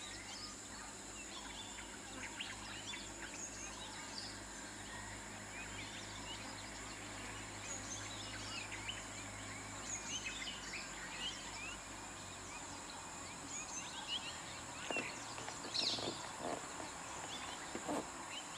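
Birds chirping and calling from the forest, many short chirps and whistles with a few louder calls near the end. Under them is a low steady hum that stops about two-thirds of the way through.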